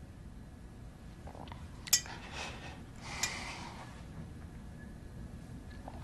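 A man's breathing and sniffs in a pause between tearful words, with a sharp click about two seconds in.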